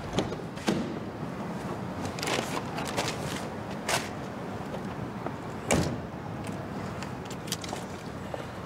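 Car door unlatching and opening, then a couple of seconds later shutting with a thud, the loudest sound, over a low street background with a few small clicks and knocks.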